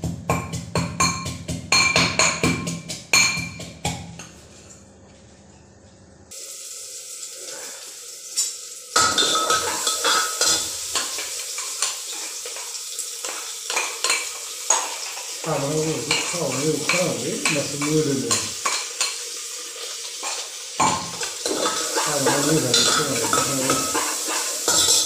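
A steel pestle pounds rapidly in a small steel mortar for the first few seconds. After a short lull, food starts sizzling in a hot pan and gets louder, with a metal ladle clinking and scraping as it stirs. A man's voice comes in over it in the second half.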